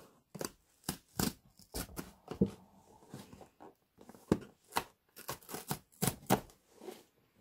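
Perforated tear strip on a cardboard toy box being ripped open by hand: an irregular run of short, sharp rips and snaps as the card gives along the perforation.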